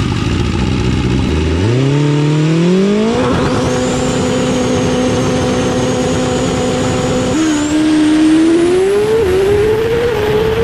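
Racing engine revving: its pitch climbs steeply over the first few seconds and holds a high steady note. About seven seconds in the pitch drops as at a gear change, then climbs slowly again.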